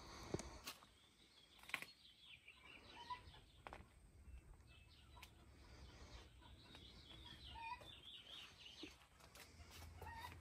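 Faint outdoor quiet with birds chirping here and there and a few soft clicks.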